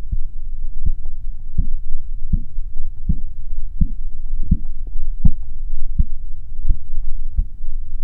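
Korotkoff sounds heard through a stethoscope as a blood pressure cuff deflates. A regular pulse of low taps comes about once every three-quarters of a second over a steady low rumble. The first taps mark the systolic pressure, phase I.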